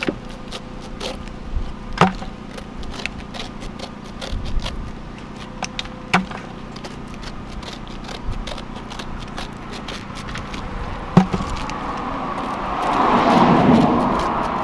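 A small knife slicing and scraping the rind off a whole pineapple, a run of small crackling cuts with a few sharper knocks. Near the end a passing vehicle rises and fades.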